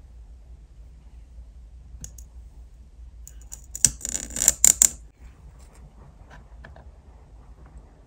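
Metal tweezers clicking and scratching against the toothpick stick of a miniature chocolate-dipped candy apple: a tight cluster of sharp clicks about four seconds in, then a few fainter ticks.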